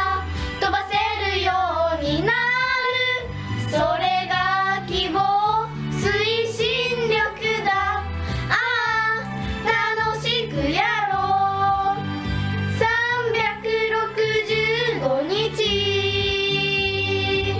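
Young girls singing a Japanese pop song over a backing track, ending the phrase on one long held note near the end.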